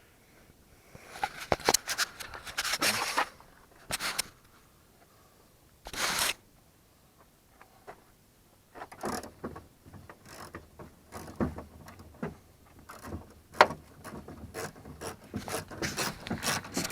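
Ratchet wrench turning a door-handle retaining nut inside a pickup's door, with irregular clicking and short metal scrapes; the clicks come thicker in the second half.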